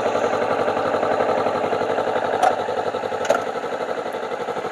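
Motorcycle engine idling with an even, fast pulsing beat, with two sharp clicks about halfway through.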